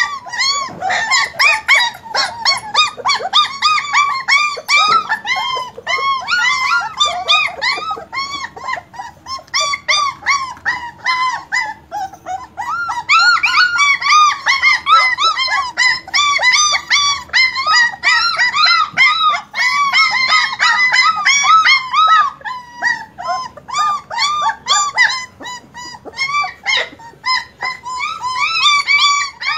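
A litter of German Shepherd puppies whining together: many short, high-pitched cries that rise and fall, overlapping almost without pause. They are loudest and densest in the middle stretch.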